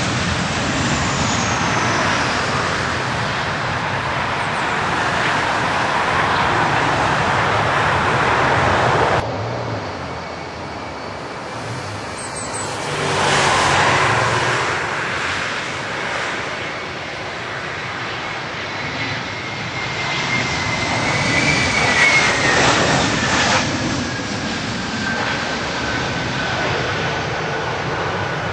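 Airliner engines on landing approach, a loud steady roar that cuts off suddenly about nine seconds in, followed by another aircraft passing whose engine whine falls slowly in pitch near the end.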